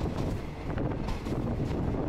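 Wind buffeting the microphone at an open window of a moving passenger train, over the steady low rumble of the carriage running on the track, with a few light clicks.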